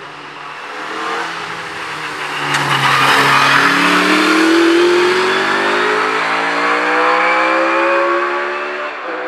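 Single-seater hillclimb racing car accelerating hard uphill past the listener, its engine note rising steadily in pitch as it pulls away.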